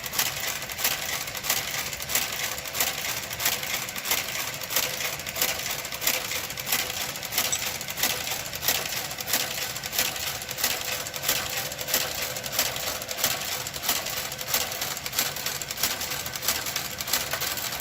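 Knitting machine's garter carriage travelling across the needle bed, knitting a row: a steady run of quick mechanical clicks with a louder clack about twice a second.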